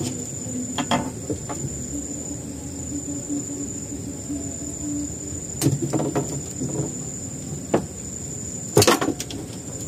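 Night insects trilling steadily on one high tone, with a few sharp clicks and knocks from tackle being handled on the boat, the loudest just before the end.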